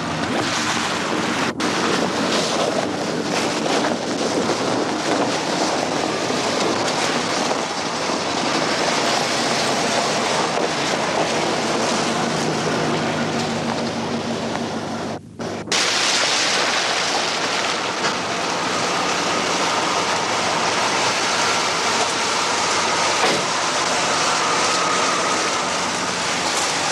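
A steady engine drone under a loud rushing noise, broken by two short dropouts, one near the start and one about halfway through.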